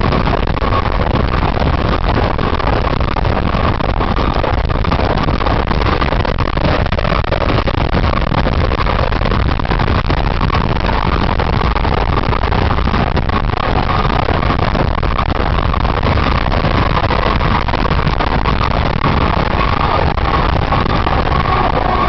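Fire engine driving at speed, heard from outside the truck: heavy wind rush over the microphone mixed with engine and road noise, with a steady high tone throughout and a second, lower tone joining near the end.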